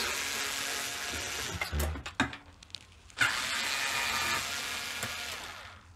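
Cordless electric screwdriver with a Torx T15 bit backing screws out of a dishwasher's door frame. It makes two runs, the second starting about three seconds in and trailing off, with a few clicks in between.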